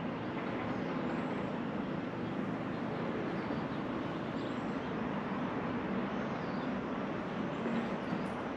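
Steady rumbling background noise with a few faint high chirps.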